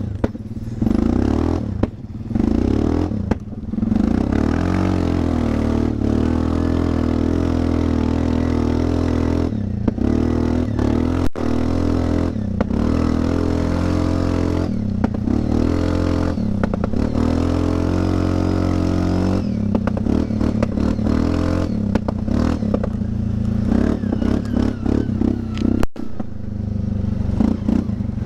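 Linhai 400S Dragonfly ATV's single-cylinder four-stroke engine running through an aftermarket imitation Akrapovic exhaust while riding over a rough dirt track, the throttle eased off and reopened several times so the exhaust note dips and rises again.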